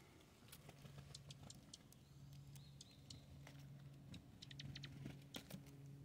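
Near silence: faint scattered ticks and light rustling, with a cluster of quick ticks after about four seconds, over a faint low hum that comes and goes.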